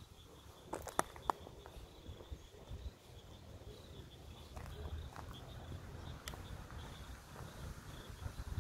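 Faint, steady high-pitched insect chirring with a low rumble underneath. A few sharp clicks come about a second in.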